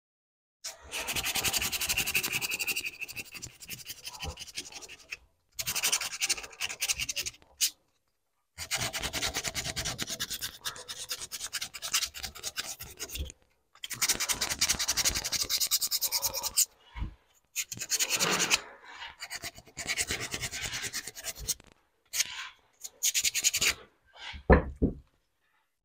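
Sandpaper, 80 grit, rubbed by hand over cured epoxy filler on a classic GM steering wheel's spokes, in bursts of quick back-and-forth strokes with brief pauses between them. The strokes get shorter in the second half, with a knock or two near the end. The sanding levels the epoxy down to the height of the rest of the wheel.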